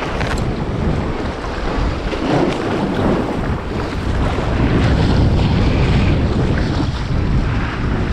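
Strong gusting wind buffeting the microphone, with the sea washing against the breakwater beneath it.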